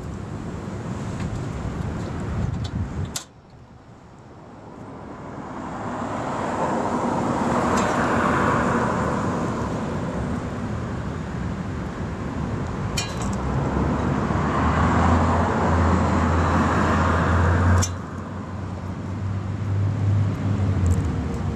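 Outdoor sound around a kerosene-fired Stirling engine fan running: a wind-like rushing noise that swells twice, a steady low hum in the second half, and a few sharp clicks.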